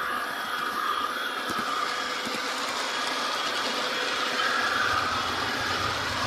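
HO-scale model train running along the track, a steady rolling whir with a wavering mid-pitched hum.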